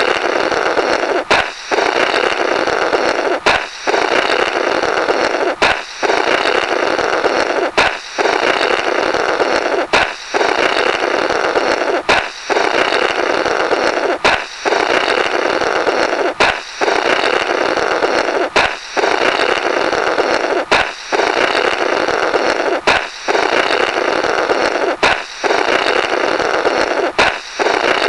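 Looped 'Blorrrt' cartoon sound effect: a balloon popping, followed by a long, steady blowing noise through the burst balloon. It repeats about every two seconds.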